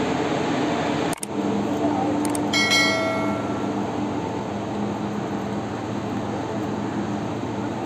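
Steady hum and noise of a large ship's machinery, heard on the open deck. About two and a half seconds in, a short metallic ring sounds and fades within a second.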